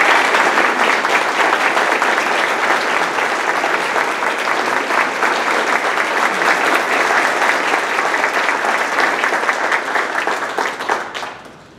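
An audience applauding: dense clapping from many hands that dies away near the end.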